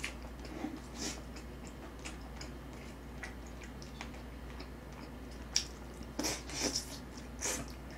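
A person biting into and chewing a piece of braised chicken held in metal tongs, with a few short wet mouth sounds in the second half. There are soft clicks earlier, likely from the tongs.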